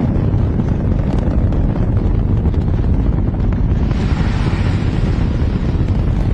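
Rocket engine firing: a loud, steady, deep rumble, with a hiss joining in about four seconds in.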